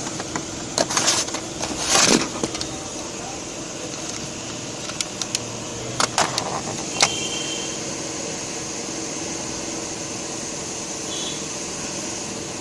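A laptop being taken apart by hand: a few sharp clicks and knocks of plastic parts as the CD drive is worked loose, bunched around the first two seconds and again near six and seven seconds, over a steady background hum.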